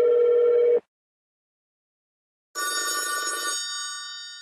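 MSN Messenger alert sounds. A steady, buzzy electronic tone ends just under a second in. After a gap, about two and a half seconds in, a bright bell-like chime starts and rings out slowly.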